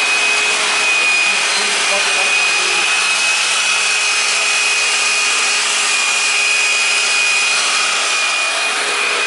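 A shop machine running steadily: an even rushing noise with a constant high-pitched whine.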